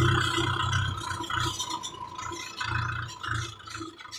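Tractor engine running as the tractor drives along a road, with rattling and wind buffeting on the microphone; loudest at the start, then fading.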